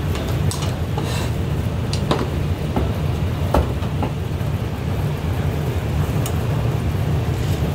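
Busy shop background noise: a steady low rumble with scattered light clicks and knocks of tableware, such as a spoon against a bowl and plates on a steel counter.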